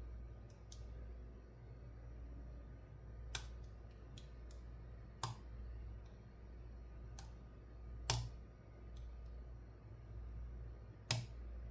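Zimmcor 5-pin rim cylinder being picked: sharp, solid clicks as the pin stacks set at the shear line, irregularly spaced, with four louder clicks about 3, 5, 8 and 11 seconds in and fainter ticks of the pick between.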